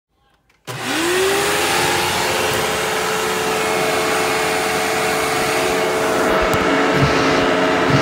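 Vacuum cleaner switched on just under a second in, its motor whine rising quickly to a steady pitch, then running steadily as it sucks up a clump of hair and shredded paper from carpet. Near the end the hiss dulls and there are a few low thumps.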